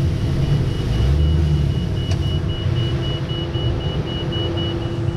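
A boat's electronic warning alarm beeping rapidly and evenly on one high pitch, over a steady low engine rumble.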